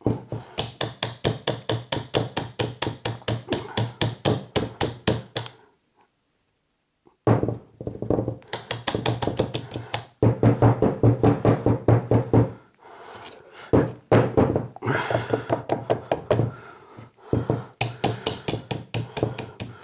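Plastic jug holding an alginate mould full of wet casting plaster knocked rapidly against the tabletop, about six dull knocks a second in runs, to vibrate air bubbles up to the surface. The knocking stops for about a second and a half around six seconds in, then starts again.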